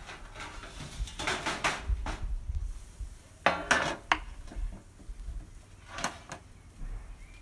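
Food-prep clatter: a knife slicing boiled potatoes on a wooden cutting board while potatoes and a metal tray are handled. A few short clatters come about one to two, three and a half, and six seconds in, the loudest at three and a half seconds.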